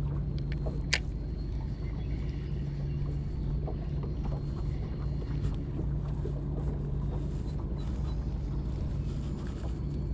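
A boat motor runs steadily with a low hum, with one sharp click about a second in and a few faint ticks.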